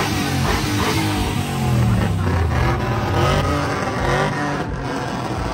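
Pickup truck engine revving with the hood open, its pitch rising and falling several times.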